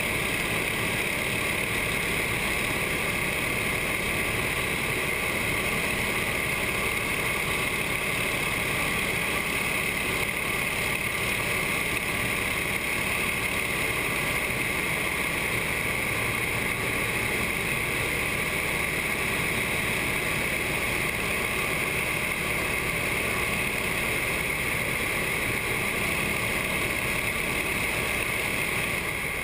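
Nine-cylinder radial engine and propeller of a light military-style trainer running steadily in cruise flight, heard from inside the cockpit as a constant drone.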